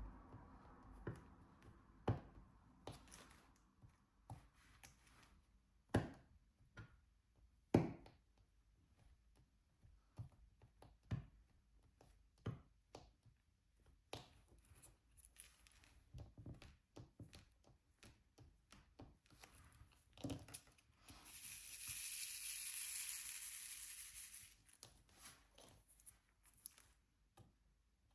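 Diamond painting with a drill pen: resin drills pressed onto the adhesive canvas give scattered light taps and clicks, with a few louder knocks. Near the end comes a rustling hiss lasting about three seconds.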